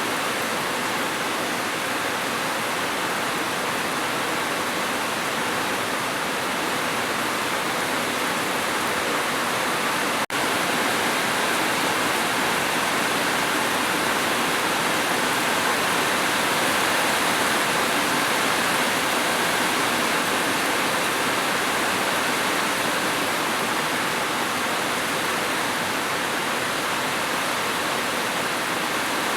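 Steady heavy rain, an even dense hiss with no single drops standing out. About ten seconds in it drops out for a split second, like a loop splice, then carries on unchanged.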